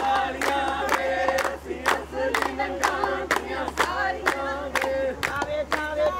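A crowd of many voices singing or chanting together over a steady beat of sharp strikes, about two to three a second.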